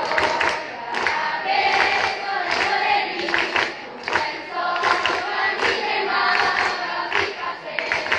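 Girls' school choir singing together in several voices, unaccompanied.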